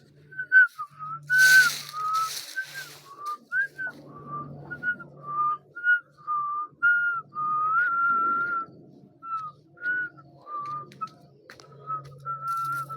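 A person whistling a tune: a string of short, clear notes hopping up and down within a narrow range, some held a little longer. Two brief rustling noises come in about a second and a half in.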